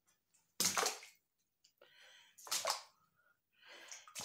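Footsteps splashing through shallow standing water on a flooded basement floor, one step about every two seconds.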